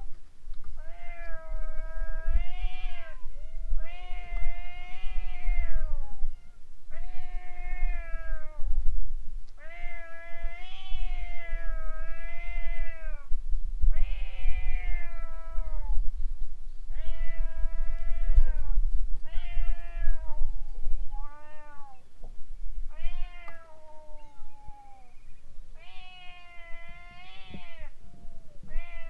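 Stray cats yowling at each other: a long run of drawn-out, wavering caterwauls, one after another every second or two, the threatening standoff calls of a cat fight.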